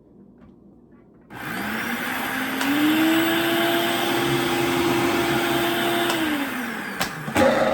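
Food processor motor grinding dehydrated strawberries and raspberries into powder: it starts about a second in, rises in pitch to a steady whir, then winds down and stops near the end. Two sharp clicks follow.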